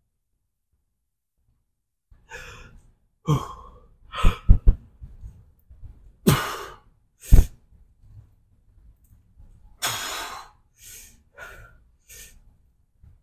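Heavy breathing from exertion: a string of forceful exhales and sighs, some with a falling voiced groan, starting about two seconds in. A couple of short low thumps come about four and a half seconds in.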